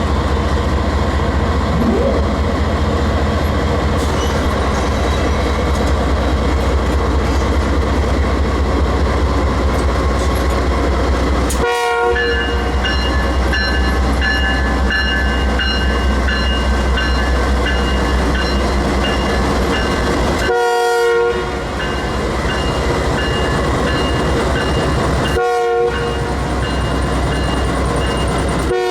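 Canadian Pacific diesel freight locomotives rumbling steadily at slow speed. Partway in the air horn sounds in short blasts, three times, and from the same point a locomotive bell rings steadily.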